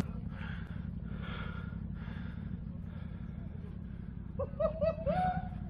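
ATV engine running at a steady low idle. Near the end, a quick run of four or five short high-pitched calls, then one slightly longer call.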